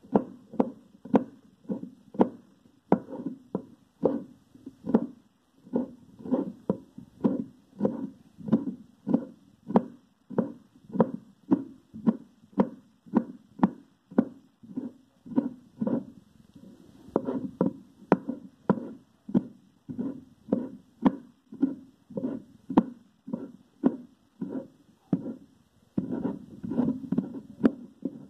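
Kitchen knife chopping green herbs on a wooden cutting board: a steady run of blade knocks on the wood, about two a second, bunching closer together near the end.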